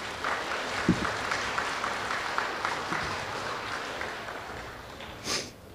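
Audience clapping in a large gym hall, swelling just after the start and tapering off over about four seconds. A short sharp noise comes near the end.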